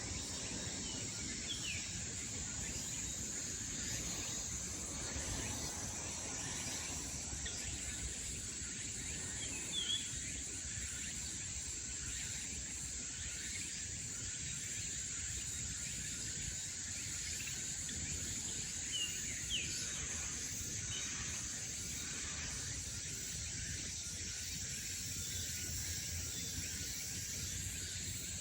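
Summer morning forest ambience: a steady high-pitched insect drone with a few brief bird chirps, over a low, even background rumble.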